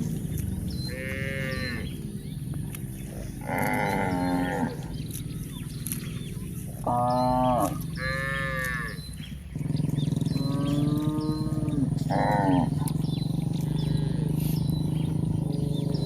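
Cattle mooing, about six separate calls of a second or so each, over a steady low hum.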